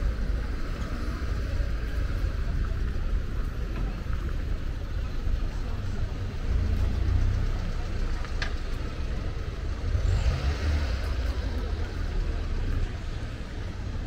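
Outdoor ambience: a low, uneven rumble throughout, with one brief high squeak about eight and a half seconds in.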